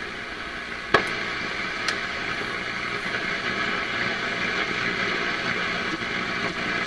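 PYE 39HC valve shortwave receiver hissing with static while tuned between stations, with a sharp click about a second in and a smaller one just before two seconds.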